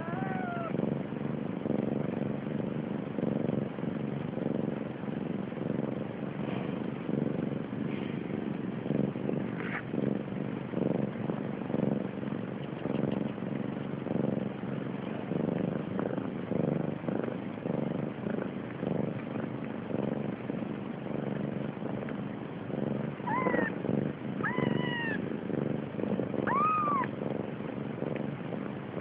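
Siamese mother cat purring steadily while her kittens nurse, a low pulsing rumble. A young kitten gives a thin, falling mew at the start, and the kittens let out three or four short, high mews near the end.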